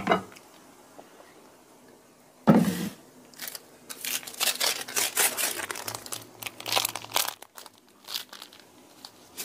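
Plastic seasoning sachet being handled and torn open: a sharp rip about two and a half seconds in, then several seconds of crinkling plastic.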